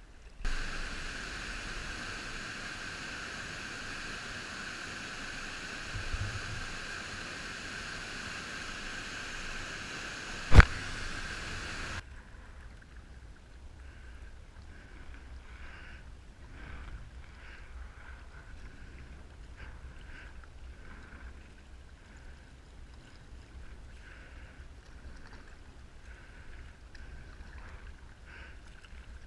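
Water washing against a sea kayak's hull, heard through a camera mounted on the deck, with a single sharp click about ten seconds in. Partway through, the sound drops to a quieter, uneven wash with soft surges about once a second, in time with paddle strokes.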